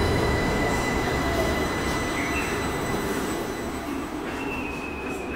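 Tama Toshi Monorail train pulling out of the station: a steady rolling rumble with a thin, steady high whine from its drive, slowly fading as it leaves.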